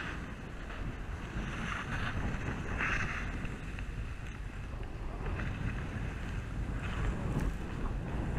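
Wind buffeting a helmet camera's microphone while skiing downhill, with a low steady rumble. Skis scrape and hiss over the packed, chopped-up snow through the turns, coming and going every second or so.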